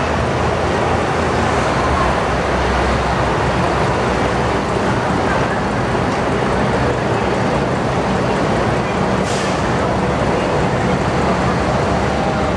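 Dense murmur of a large crowd of commuters talking and shuffling along a packed station platform and concourse, over a steady low hum, with one short hiss about nine seconds in.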